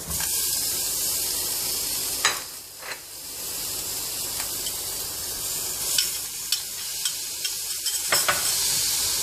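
Beef and green peppers sizzling in hot oil in a frying pan with mushrooms and carrots, being stirred, with a few sharp clicks of the utensil against the pan. The sizzle dips briefly about two and a half seconds in, then picks up again.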